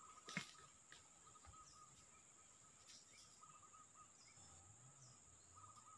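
Near silence: a faint, steady high-pitched insect drone, with one short click about a third of a second in.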